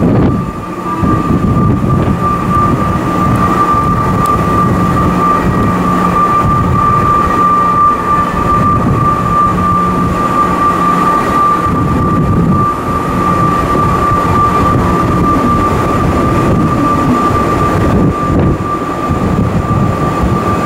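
A Chiba New Town Railway 9800-series electric train standing at a station platform, its on-board equipment giving a steady high-pitched whine over a low hum. The hum drops out briefly about halfway through. The pitch stays level, as a train does at rest.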